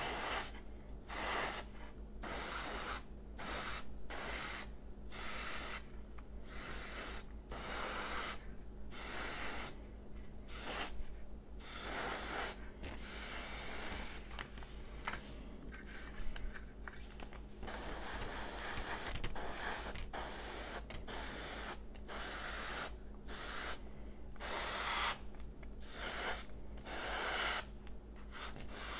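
Gravity-feed airbrush spraying olive drab paint in short hissing bursts, about one a second, with a longer steady spray a little past the middle.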